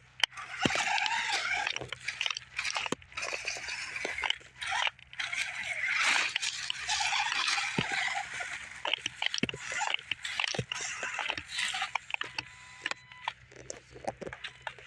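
RC rock crawler driving over rock: its small electric motor and gearbox whine, rising and falling with the throttle, while the tyres scrabble and knock on the stone.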